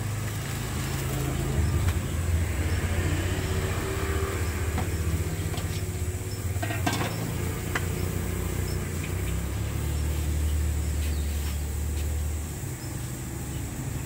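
Road traffic passing: a low engine rumble that swells and eases. A few light clinks of bowls and utensils come around the middle.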